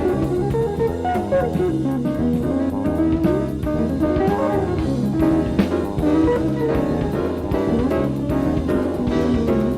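Live jazz-fusion band playing a funky groove, with melodic lines that glide in pitch over drum kit and bass guitar, played back from a 1985 cassette tape recording.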